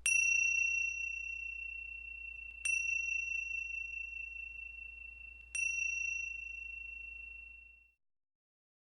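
A small bell or chime struck three times, about three seconds apart, each strike a single high ringing tone that slowly dies away. The ringing cuts off about eight seconds in.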